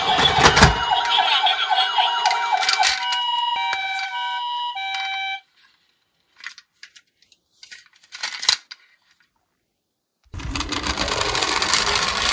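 Electronic toy ambulance siren playing a two-tone hi-lo wail, with plastic toy vehicles clattering together in a cardboard box; the siren cuts off suddenly about five seconds in. A few handling clicks follow, then about ten seconds in a steady rushing noise begins.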